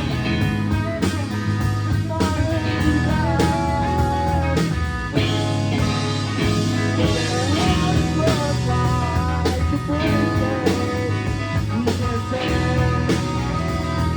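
Live rock band playing an instrumental passage: a lead guitar line with bending notes over bass and drums.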